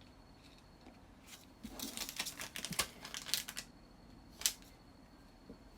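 A quick run of light clicks and taps, then one sharp click about four and a half seconds in: small handling sounds of a craft tool and paper pieces being worked on a paper card on a tabletop.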